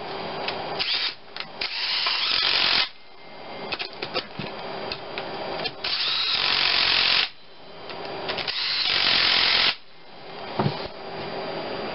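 Cordless power driver running bolts in to fasten a motor mount bracket to an engine block. It runs in three bursts of one to two seconds, each stopping abruptly, with shorter blips and clicks between.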